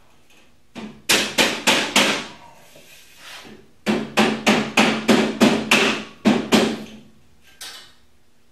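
Rubber mallet tapping a steel shelving beam down into the upright's slots to seat it. About five taps come about a second in, then a quicker run of about a dozen at roughly four a second, and one last tap near the end.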